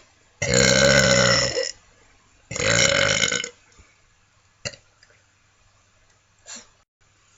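A person burping: two long, loud burps of about a second each, close together. A sharp click follows, then a faint short sound.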